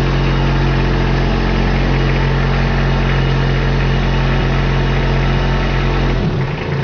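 Kubota compact tractor's diesel engine idling steadily, with a change in its low rumble just before the end.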